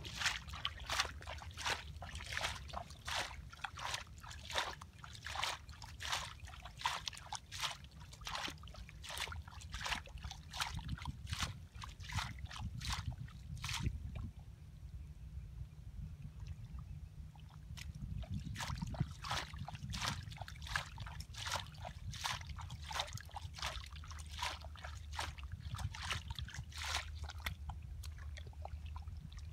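Hands scooping and sloshing through shallow muddy water, with quick splashes and dribbles about two to three a second. The splashing thins out about halfway through, then picks up again, over a steady low rumble.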